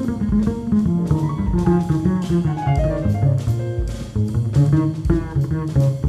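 Live jazz trio playing: acoustic piano, upright bass and drum kit with cymbals. The piano plays a descending line of notes around the middle over walking bass notes and steady cymbal and drum strokes.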